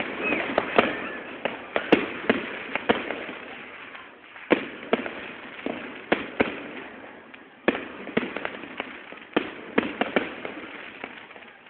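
Aerial fireworks bursting overhead: a rapid, irregular run of sharp bangs, more than a dozen, one after another. The recording is a low-quality phone recording that cuts off the high end.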